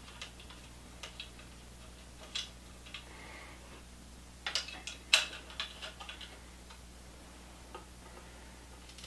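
Scattered light clicks and taps of small metal parts as a battery mounting plate is fitted and bolts are threaded into a bicycle frame's water-bottle-cage mounts, with a quick run of sharper clicks about five seconds in. A faint steady low hum sits underneath.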